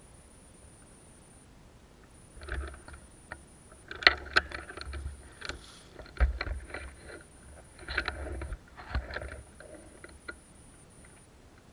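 Irregular rustling and crunching bursts, typical of someone moving through dry forest undergrowth, with a few sharp clicks and a couple of low thumps mixed in.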